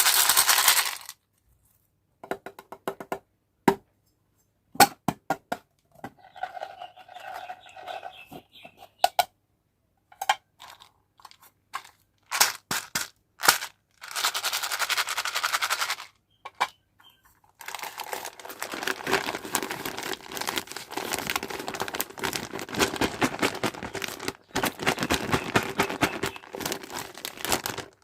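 Candy packets being opened and handled: plastic wrappers crinkling and tearing, with several longer runs of rapid clicking and rattling from small hard-shelled candies pouring out, between scattered single clicks.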